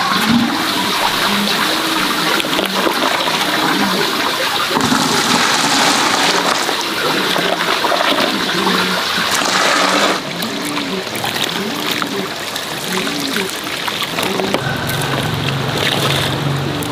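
Hot water scooped with a plastic dipper from a steaming pot and poured out, splashing and trickling without a break; the splashing drops off abruptly about ten seconds in.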